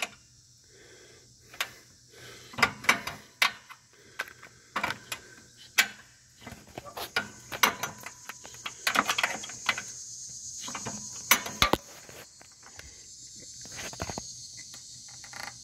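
Irregular metallic clicks and clinks of an open-end wrench working a steering bracket bolt on a Cub Cadet GTX1054 mower, turned a little at a time in a cramped spot, with a steady high insect chorus behind.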